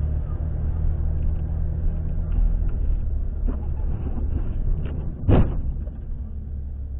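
Steady low rumble of a car's engine and tyres on a snowy road, heard from inside the cabin, with scattered light knocks. About five seconds in comes a single loud thump as the oncoming car, sliding on the snow, strikes the front of the car.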